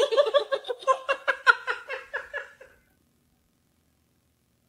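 Young men laughing hard in a quick run of "ha-ha" pulses, about four a second, that breaks off a little under three seconds in.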